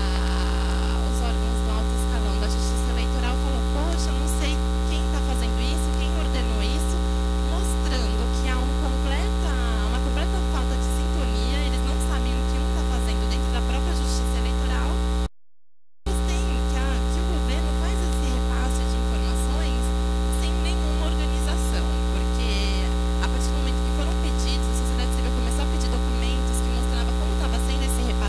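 Steady, loud electrical mains hum with many evenly spaced overtones. It cuts out completely for under a second about halfway through, then comes back unchanged.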